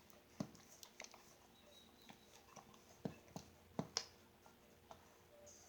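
Faint, scattered clicks and taps, about half a dozen, several of them close together a little past halfway, from butter slime being mixed with borax activator in a bowl.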